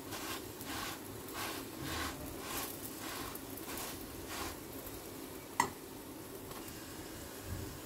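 Paratha sizzling faintly on a hot iron tawa as a silicone brush greases its top in soft strokes about two a second. The strokes stop about four and a half seconds in, and a single sharp click follows about a second later.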